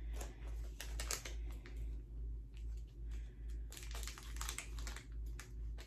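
Plastic packaging crinkling and clicking as small items are handled: clusters of quick, sharp crackles, one about a second in and a longer run in the second half, over a steady low hum.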